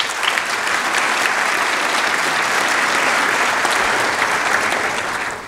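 An audience applauding: many people clapping steadily, dying away near the end.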